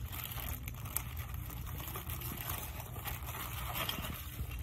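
Faint rustling of paper as the vacuum's instruction manual is handled and leafed through, over a steady low hum.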